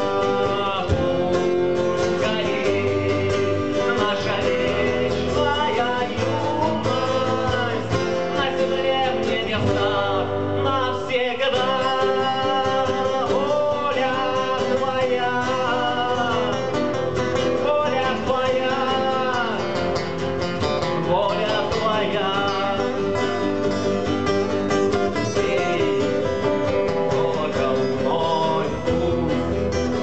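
Acoustic song: three acoustic guitars strummed and picked together, with a man singing the lead.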